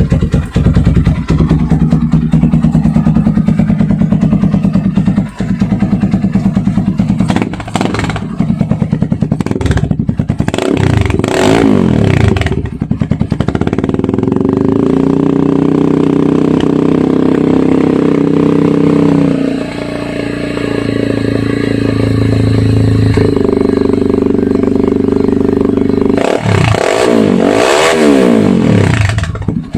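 Motorstar Z200X motorcycle engine running loud through a muffler with its silencer insert removed. It ticks over with a fast exhaust pulse, is revved up and down several times, and is held at a steady higher speed for a few seconds in the middle.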